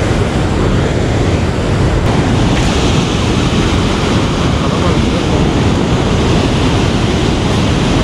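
Steady roar of rushing river water, with some wind buffeting the microphone.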